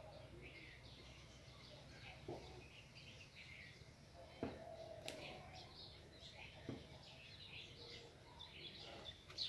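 Faint birdsong: small birds chirping repeatedly, with a few soft knocks now and then.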